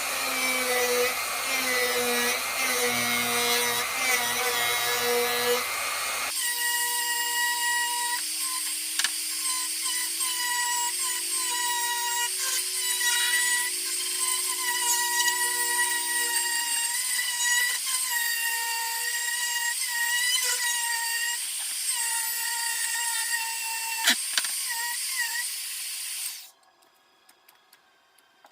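Dremel 4300 rotary tool running at high speed, its bit grinding into red cedar, the whine wavering slightly as the bit bears into the wood. The sound changes abruptly about six seconds in, and the tool falls to near silence near the end.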